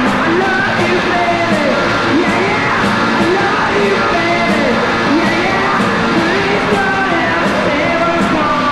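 Punk rock song: yelled, sung vocals over a loud band, with cymbals hitting on a steady beat.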